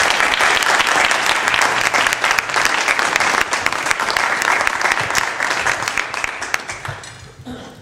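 Small audience applauding, the clapping dying away near the end.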